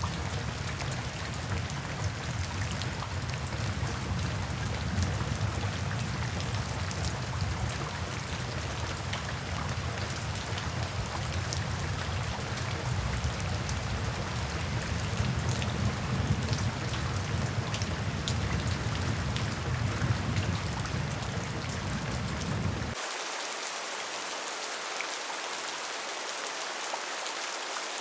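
Steady rain on a tin roof: a dense patter of many separate drop ticks over a low rumble. About 23 seconds in, the rumble cuts out suddenly and a lighter, hissier rain carries on.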